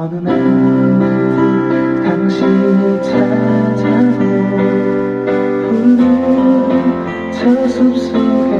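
Music from a CCM worship song starts abruptly and plays on with sustained chords.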